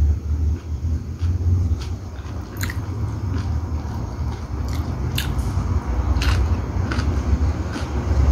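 A person chewing food close to the microphone, with short mouth clicks at irregular intervals, over a steady low rumble.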